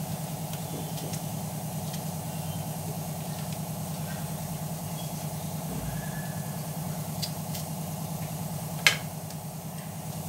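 Steady motor hum, with one sharp click of a knife against a ceramic plate near the end.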